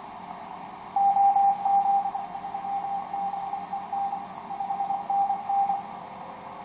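Morse code (CW) signal heard through a Yaesu FT-1000MP HF transceiver tuned to the 12 m band: a single steady-pitched tone keyed on and off in dots and dashes over band hiss, starting about a second in and stopping near the end. The station heard is the XR0YG Easter Island DXpedition.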